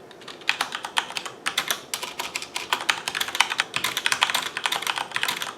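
Fast, continuous typing on a Corsair K70 Vengeance mechanical keyboard with Cherry MX Brown switches: a rapid stream of key clacks, many per second, starting about half a second in.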